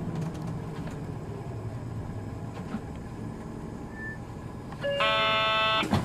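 Cabin sound of a Hino Poncho minibus, its four-cylinder diesel engine and road noise running steadily. Near the end an electronic chime sounds once for about a second, followed by a sharp loud thump.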